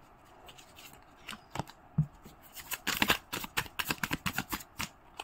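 A deck of tarot cards being shuffled by hand: quick papery flicks and slaps of the cards, sparse at first and coming thick and fast in the second half.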